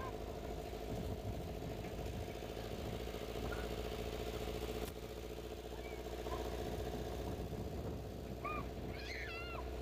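Vehicle engine running steadily as it drives slowly along a dirt track. There is a single click about five seconds in, and a bird calls several times in short wavy notes near the end.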